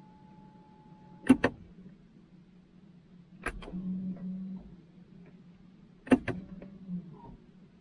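BMW i3 electric parking brake being worked: sharp clicks about a second in, three and a half seconds in and six seconds in, the last two each followed by the rear caliper actuator motors running for about a second. The brake is being applied and released to check that it clamps the new rear discs and pads properly after leaving service mode.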